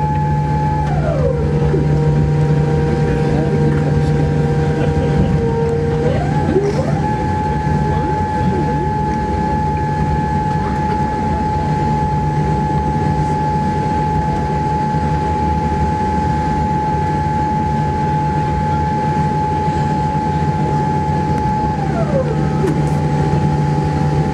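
Cabin noise of a Boeing 787-8 Dreamliner rolling out on the runway after landing: a steady loud rumble of engines and wheels. Over it run whining tones that drop in pitch about a second in, rise back about six seconds in, and drop again near the end.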